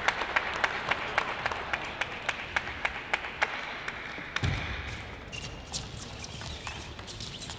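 Scattered applause from spectators, thinning out as it goes, with a single dull thump about four and a half seconds in.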